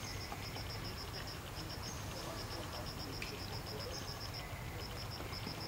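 An insect chirping in a fast, even pulse train, about six high-pitched pulses a second with a couple of short pauses, over a steady low rumble of forest background noise.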